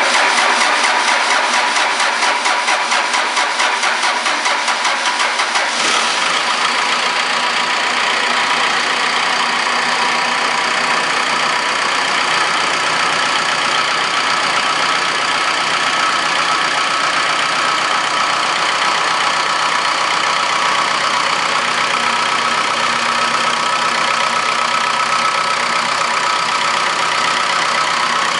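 Cummins BT3.9 four-cylinder turbo diesel being started after sitting a week: the starter cranks it with a rhythmic pulsing for about six seconds before it catches. It then runs steadily at idle.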